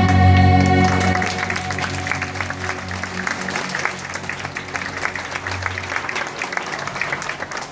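A song with backing music ends about a second in, and audience applause follows, with a low held tone from the music underneath.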